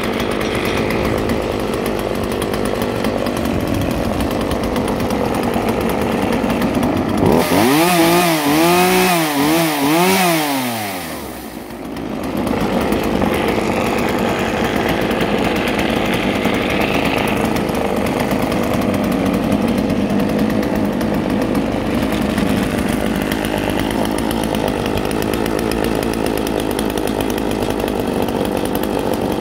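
Freshly rebuilt Husqvarna 36 two-stroke chainsaw running steadily at idle, revved up and down about four times in quick succession near the middle, then dropping back to a steady idle.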